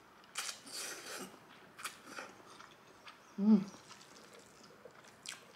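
A person chewing a mouthful of soft instant noodles, with short wet smacking mouth noises scattered through, and a brief closed-mouth "mm" hum about three and a half seconds in.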